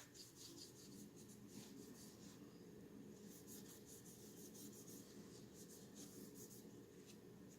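Faint, irregular scrubbing and rubbing strokes of parts of a 1911 pistol being cleaned by hand, over a low steady hum.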